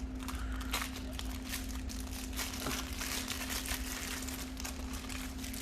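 Plastic packaging crinkling and crackling in irregular bursts as a phone is unwrapped by hand.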